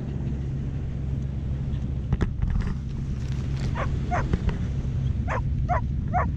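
Toy poodle puppy giving five short, high whines: two about four seconds in and three close together near the end.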